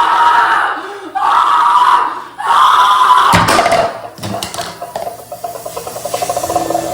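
A person screaming in three long, loud yells, one after another. This is followed by a few sharp clattering knocks about three seconds in, and then a quieter warbling, pulsing sound.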